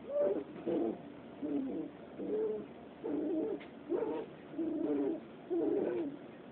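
Welsh terrier puppies play-growling: about eight short, wavering, low calls, roughly one a second.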